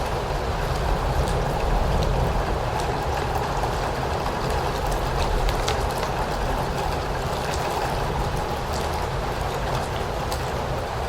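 Steady rain: a dense, even hiss over a deep low rumble, with scattered sharper drop ticks.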